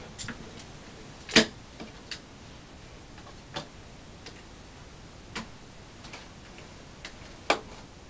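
A few irregularly spaced clicks and knocks of small objects being handled and set down, the loudest about a second in and another near the end.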